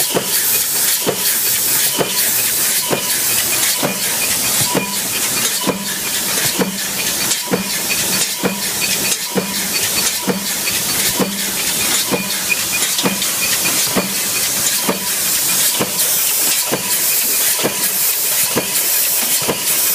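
Punch press running continuously, stamping parts in its die: a sharp hit of the ram a little more than once a second, evenly spaced, over a steady hiss.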